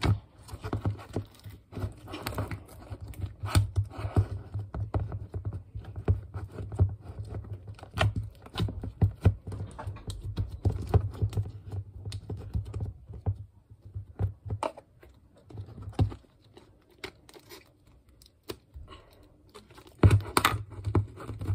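Fluffy slime being squished and pressed by hand into a small plastic jar, giving a run of irregular small pops, clicks and crackles. It thins out for a few seconds, then comes back louder just before the end.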